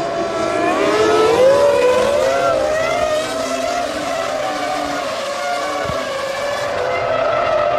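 Several Formula One cars' V10 engines at high revs, their pitches rising and falling against one another as they shift gears and pass, settling into a steadier high scream in the second half.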